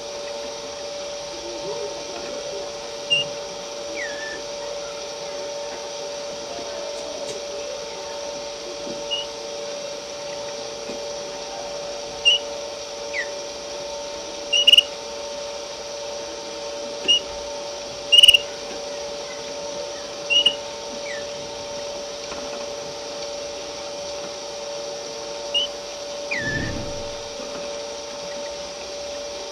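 A domestic canary giving short, single high chirps, about ten scattered through the half minute, a few of them quick downward slurs rather than a run of song. Under them runs a steady mechanical hum.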